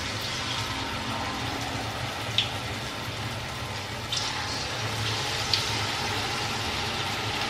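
Corn fritter batter frying in hot oil in a wok: a steady sizzling hiss with a few sharp pops, over a steady low hum.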